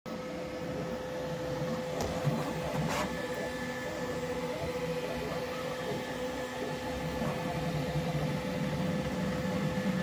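Bambu Lab X1-Carbon 3D printer running a print: a steady fan hum under the whir of the moving print head, with a couple of clicks about two and three seconds in.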